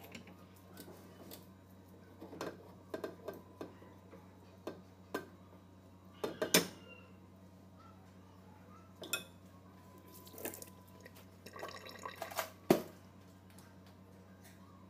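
Utensils clinking and scraping as ube batter is spooned off with a spatula onto a pan of cheesecake batter: irregular light clicks, the loudest about six and a half seconds in and again about twelve and a half seconds in.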